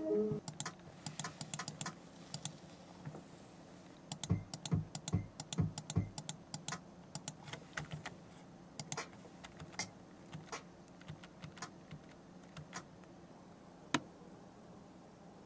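Typing on a computer keyboard: irregular keystrokes, with a run of heavier strokes about four to six seconds in and a single sharp click near the end.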